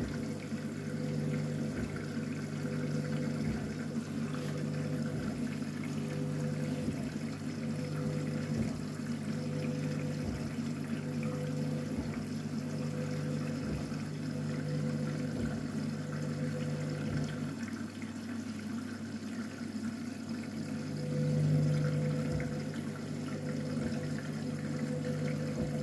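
Water running into a Candy washing machine during a top-up fill, over a steady hum, with a soft low thump about every second and a half to two seconds. The hum drops out for a few seconds about two-thirds of the way through, then comes back.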